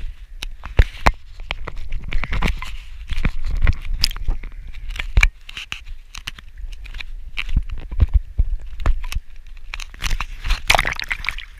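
Close handling noise: irregular knocks, scrapes and rubbing from hands and clothing against the camera, with a denser stretch of scraping near the end.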